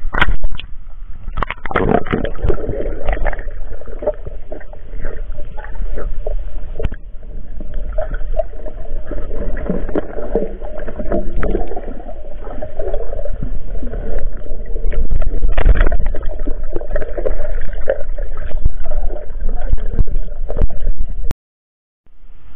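Underwater water noise heard through a submerged camera: muffled gurgling and a steady low rumble, with many small clicks and knocks as the diver moves. It cuts off suddenly near the end.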